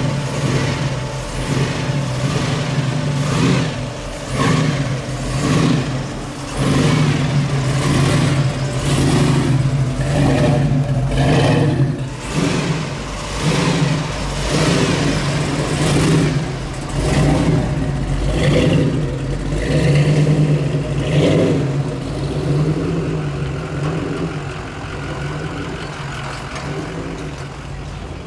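Supercar engines revving in repeated sharp throttle blips, roughly one a second, over a steady low engine drone, easing off over the last few seconds.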